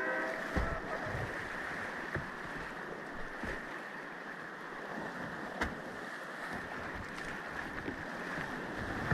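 Whitewater rapids rushing around a kayak: a steady hiss of churning river water, with a few sharp knocks spread through it.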